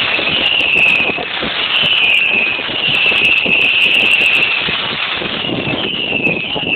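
Fireworks crackling as glittering star shells burst, with a high tone that falls slightly in pitch and repeats about once a second.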